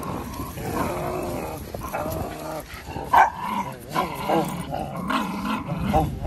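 Miniature schnauzer puppy growling and yapping in play while tugging on a stick, with a loud short yap about three seconds in.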